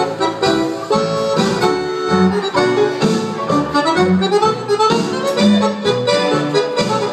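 Background music with a reedy lead melody over a repeating bass line.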